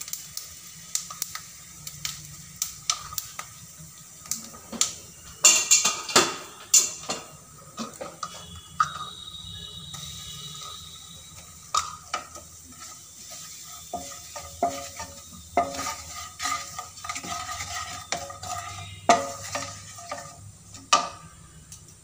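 Cumin seeds sizzling in hot oil in a nonstick kadhai while a wooden spatula stirs and scrapes them, with sharp clinks of a metal spoon tipping spices in. The loudest run of clinks and knocks comes about six seconds in.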